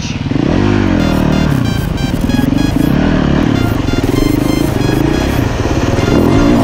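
Dirt bike engine revving up and down as it is ridden, with background music with a steady beat coming in about a second in.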